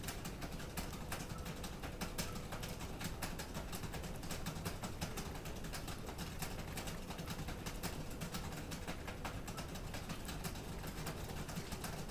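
A hamster nibbling a piece of cheese held in its paws: a dense, irregular run of tiny clicks from its teeth.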